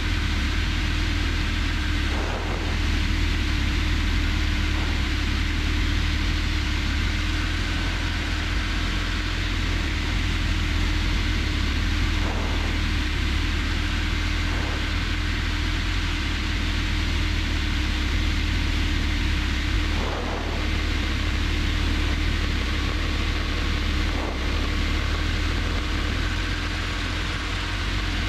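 Robin DR400 light aircraft's piston engine and propeller droning steadily, heard inside the cockpit, on final approach to land. A few faint brief clicks sound over the drone.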